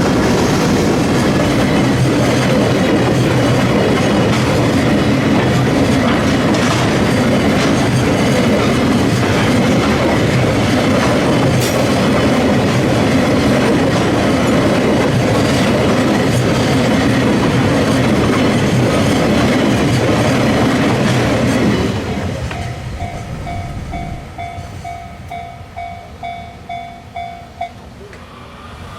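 Freight train passing over a level crossing, loud and steady. About 22 seconds in, the train noise falls away and leaves the crossing's warning bell ringing in quick, regular dings, which stop about a second before the end.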